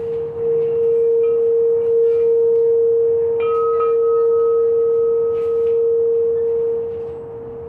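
Tall handheld Crystal Tones "Practitioner" alchemy crystal singing bowl, sung by rubbing a wand around its rim, holding one strong steady tone. A fainter higher overtone joins about three and a half seconds in, and the sound eases off a little near the end.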